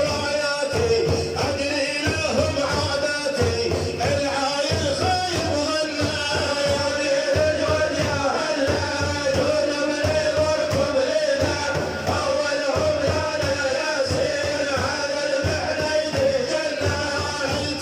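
Arabic devotional singing in praise of the Prophet, a voice chanting over a steady, evenly repeating drum beat.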